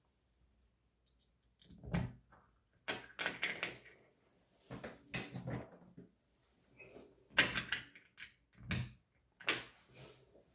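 Irregular clanks, clicks and scrapes of metal hardware being handled, a few of them ringing briefly.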